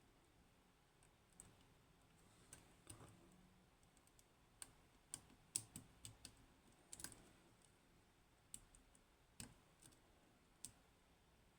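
Faint, scattered metallic clicks of a lock pick probing the top row of pins in a Kaba Ace lock while it is being picked; the clicks come most thickly in the middle.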